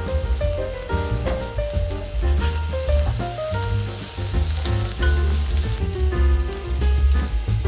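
Pork intestine pieces sizzling on a hot griddle pan as more are laid out with tongs, under background music with a steady bass and a stepping melody.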